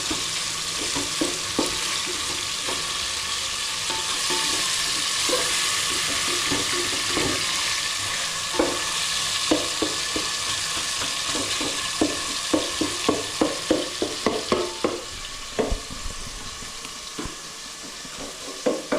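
Food sizzling as it fries in a pot, with a spoon stirring and clacking against the pot, the clacks coming in a quick run about two-thirds of the way through. The sizzle gets a little quieter near the end.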